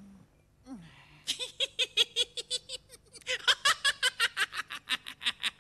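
A man laughing hard, a fast, high-pitched "ha-ha-ha" of about six pulses a second, in two long bouts with a short break about three seconds in.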